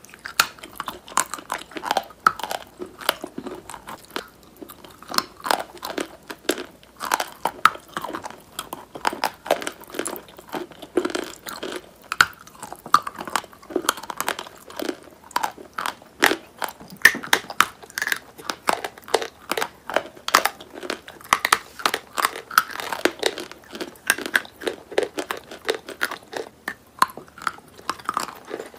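A person biting off and chewing hard lumps of edible chalk and clay: many crisp crunches, several a second, mixed with crumbly chewing.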